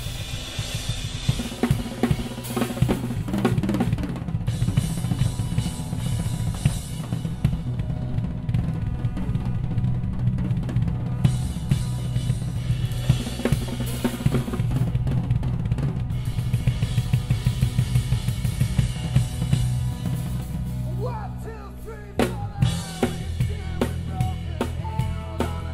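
Drum kit played live, with busy kick drum, snare and cymbal strokes over steady low notes. The playing dips and changes abruptly near the end.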